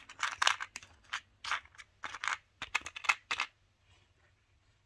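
Small resin nail charms and a clear plastic compartment box clicking and rattling as fingers handle them: a run of short, irregular clicks that stops about three and a half seconds in.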